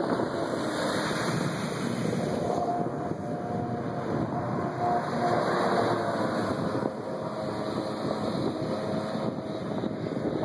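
Yamaha Exciter jet boat running at speed through a sharp turn: a steady engine whine over a rushing noise. The whine holds one pitch for a few seconds and fades about halfway through.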